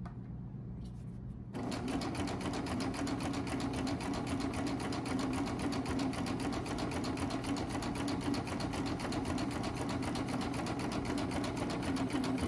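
Baby Lock Triumph serger starts up about a second and a half in, then runs steadily at speed with a fast, even stitch rhythm. It is stitching knit bias binding onto the curved edge of a fabric mask through its binder attachment.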